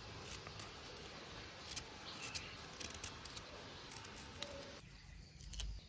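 Faint rustling and scattered light clicks of food preparation by hand, over a low hiss, with a dull low bump near the end.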